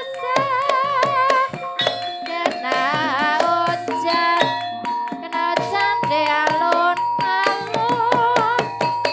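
Javanese Banyumasan gamelan music: rapid hand-drum strokes, ringing metallophone notes and a wavering melody line with vibrato.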